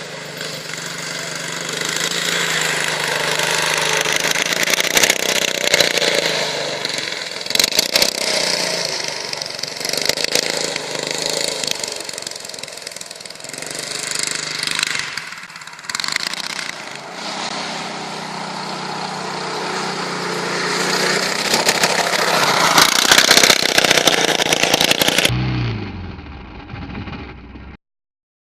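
Off-road buggy engine running and revving, its loudness rising and falling as the buggy is driven, with tyre and wind noise. Near the end the sound changes abruptly and cuts out briefly.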